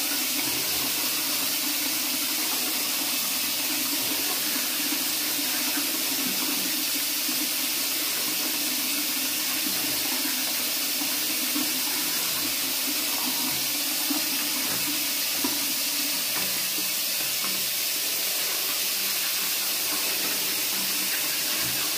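Bathroom tap running steadily into a sink, an even unbroken rush of water.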